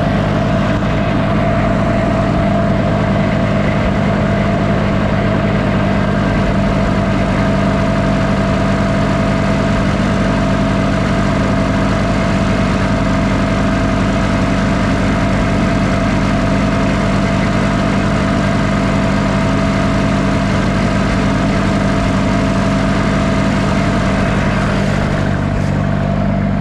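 Tractor engine running steadily, just after being started with the choke, with an even, unchanging note throughout.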